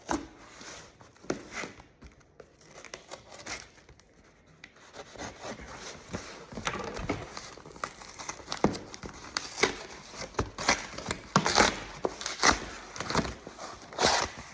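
Packaging being handled and torn open: crinkling and rustling with sharp clicks and snaps, sparse at first, then busier and louder from about halfway.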